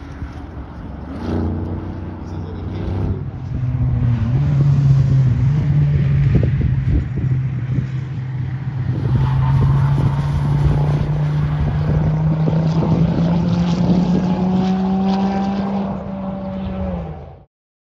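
Sports car engine running as it drives the circuit, heard from trackside: a steady engine note that climbs slowly in pitch as the car accelerates. The sound cuts off suddenly near the end.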